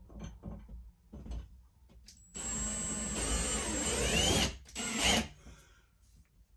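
A few handling clicks, then a cordless power driver runs for about two seconds and once more briefly, driving Torx screws through the drywall for a clothes-rod bracket. The installer doubts these two screws went into wood.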